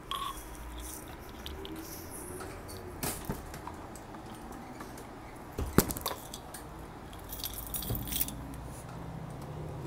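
Keys jangling and clinking in the hand, in scattered bursts, with one sharp knock about six seconds in.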